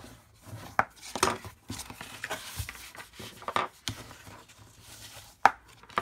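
Bone folder rubbing and scraping along folded cardstock in several short strokes, burnishing the score lines of a paper box, with a sharp knock near the end.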